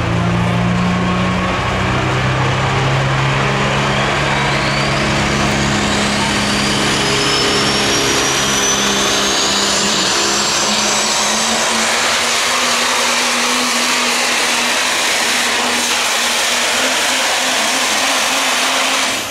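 Super stock turbocharged diesel pulling truck under full throttle, hauling a pulling sled: a loud, steady engine roar with a high whistle that climbs in pitch over the first several seconds. The sound cuts off abruptly at the very end as the pull finishes.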